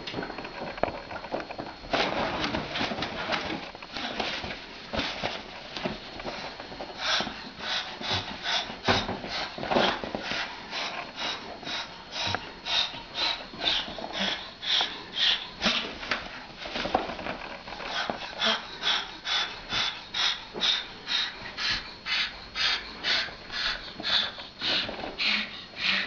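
A cockatoo making short breathy hisses over and over, about two a second, settling into a steady run from about a quarter of the way in.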